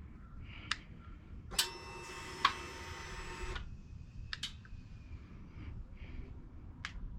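Scattered sharp clicks and taps of tools and small parts being handled. A steady buzzing whirr lasts about two seconds, starting about a second and a half in.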